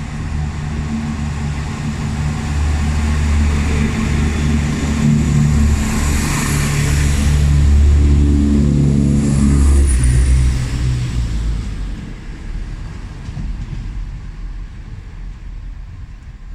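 Diesel multiple unit's engines working as the train pulls out of the station. The engine note builds for about ten seconds and rises in pitch near its loudest, then fades away as the train leaves.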